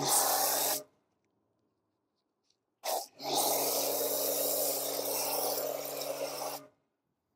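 Wheel foam sprayed onto a car wheel from a sprayer: a steady hiss of under a second, then after a pause a short puff and a longer spray of about three and a half seconds, with a low steady hum under the hiss.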